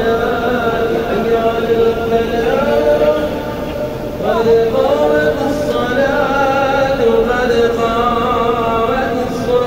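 A male voice chanting the Islamic call to prayer in long, melodic held notes that glide in pitch, with a short break between phrases about four seconds in.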